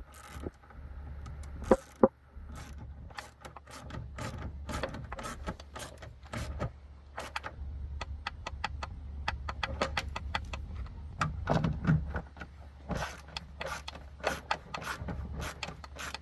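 Ratchet wrench clicking in quick runs as a nut is tightened, with two sharp louder clicks about two seconds in, over a steady low hum.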